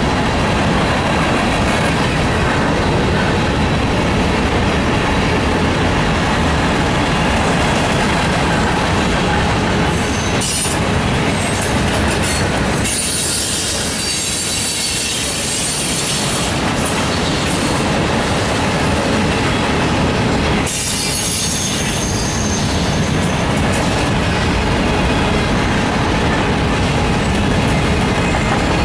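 Freight train cars, covered hoppers and an autorack, rolling steadily past at close range: continuous loud wheel-on-rail noise with clickety-clack, and high-pitched wheel squeal at times.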